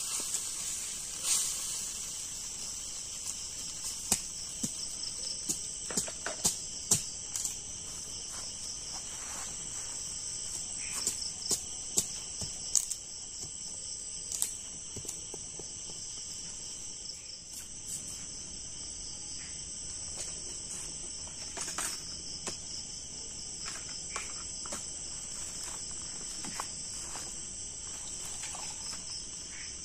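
Steady night chorus of insects, crickets chirring without a break, with scattered light clicks and knocks, most of them in the first half.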